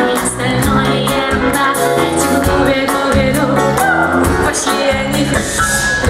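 Loud live pop band music: drums keeping a steady beat under bass and held keyboard or guitar notes, in an instrumental passage of the song.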